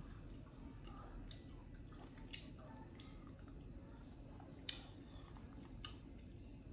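A few faint, sharp clicks and light taps over a low steady room hum, the loudest a little past two thirds of the way through.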